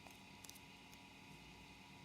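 Near silence with a few faint clicks from a 15 cm square sheet of origami paper being handled and creased, a double click about half a second in, over a steady low hiss.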